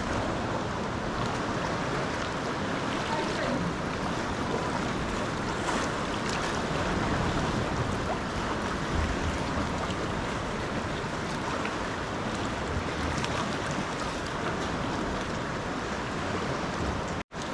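Steady wash of sea waves with wind noise on the microphone. The sound drops out for an instant near the end.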